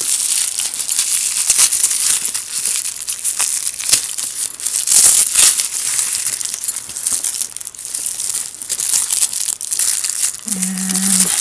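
Hands crumpling and pulling white protective wrapping off a new leather backpack's straps: a continuous crinkling rustle with many sharp crackles.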